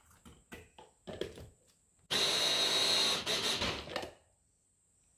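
A few clicks and knocks as the motor unit of an electric mini food chopper is fitted onto its bowl, then about two seconds in the motor starts suddenly and runs for about two seconds, chopping a wet chili and spice paste, before stopping.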